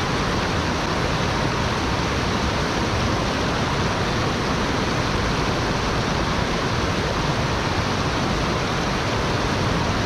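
Shallow rocky stream rushing steadily over rapids, a constant even roar of running water.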